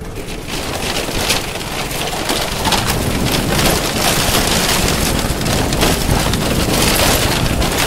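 Tyres of a two-wheeler rolling over a woven bamboo-mat bridge: a dense, steady crackling clatter of the loose bamboo, building up over the first second.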